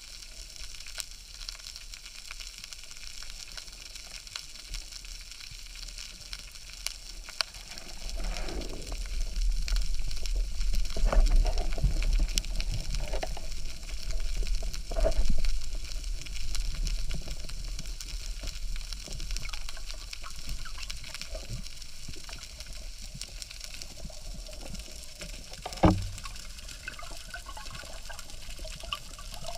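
Underwater sound through a speargun-mounted camera's housing: a steady faint crackle and hiss, with a low rush of moving water that swells from about eight seconds in and fades again as the diver swims. A single sharp knock comes near the end.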